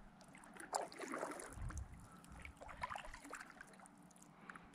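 Kayak paddle dipping into calm river water, faint splashes and drips in a few irregular strokes.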